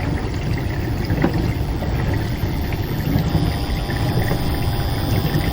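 Dishwasher running: a steady low rumble of its wash pump with water churning inside, and small clicks scattered through it. A faint steady hum joins about three seconds in.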